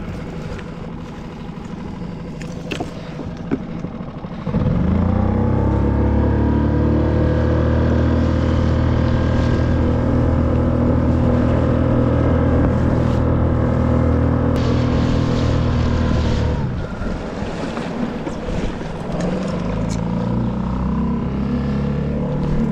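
Small outboard motor on a one-person skiff. About four seconds in it speeds up with a brief rise in pitch, runs steadily at speed, then is throttled back about sixteen seconds in and keeps running at a lower speed.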